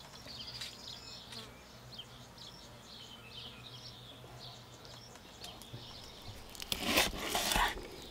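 Faint high chirping in the background, then near the end a loud scraping of about a second: a knife working fish flesh off the skin on a wooden cutting board.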